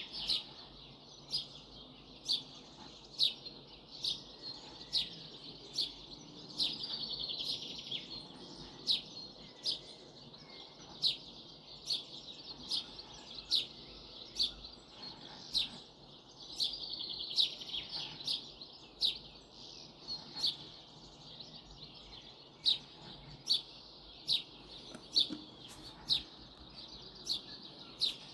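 Bush birdsong: short, sharp, high chirps repeated about once a second, broken every ten seconds or so by a brief buzzy trill.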